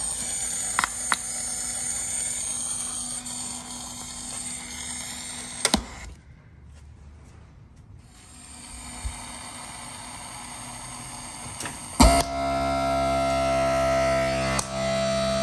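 Electrical noise from a Harley-Davidson Road Glide's fairing speakers: a steady hiss with a low hum and a high whine. It is the noise and popping the customer complains of, caused by faulty audio wiring. A click cuts the noise off about six seconds in, and after a quieter stretch a loud pop about twelve seconds in is followed by steady sustained tones from the speakers.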